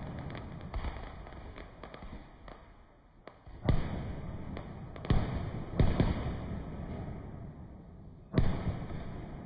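Aerial fireworks going off: four loud booms, the first about a third of the way in and the last near the end, with a steady crackle of small pops between them.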